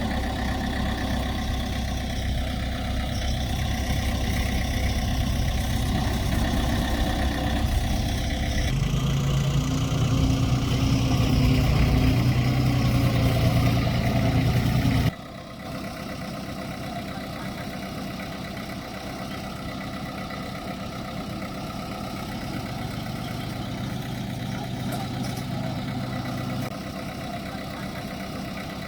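Heavy diesel construction machinery running. The engine note rises and gets louder about nine seconds in, then cuts off abruptly about halfway through to a quieter, steady engine sound.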